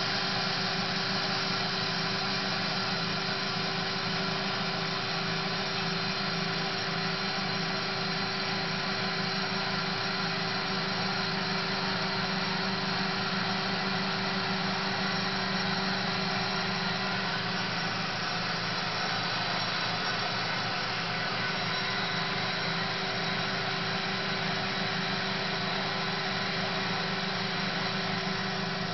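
Marvel Spartan PA13/2 automatic horizontal bandsaw running: a steady, even machine hum with several held tones under a dense hiss, unchanging throughout.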